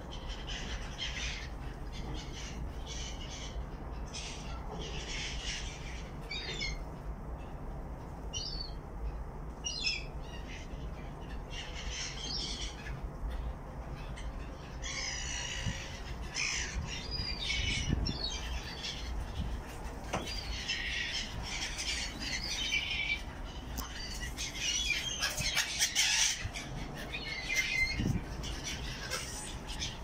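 Gulls calling: repeated short, harsh squawks that come more often and overlap from about halfway on, over a steady low rumble.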